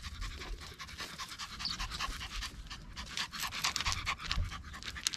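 Yorkshire terrier panting in short, quick breaths.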